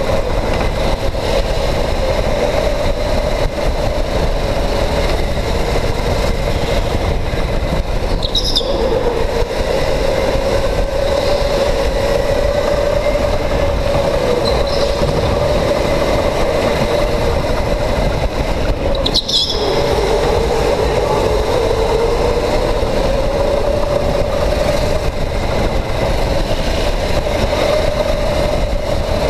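Electric go-kart motor whining steadily while it drives, its pitch dipping and rising with speed, over a heavy rumble of tyres on concrete and wind on the onboard camera. Twice the whine drops out briefly with a short high chirp, about 8 and 19 seconds in.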